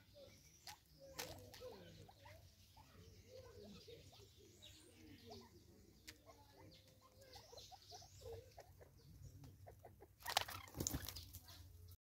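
Spurfowl at a seed feeder giving short, soft, low calls, with scattered light pecking taps. About ten seconds in comes a loud brief burst of wing flapping as the birds flush off the feeding stump.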